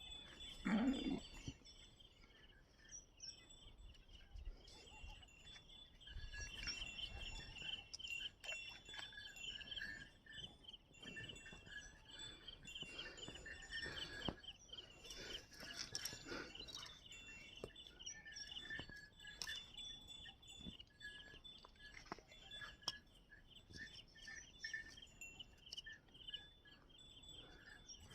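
Many small birds chirping and calling over faint outdoor background noise, with a brief louder low sound about a second in.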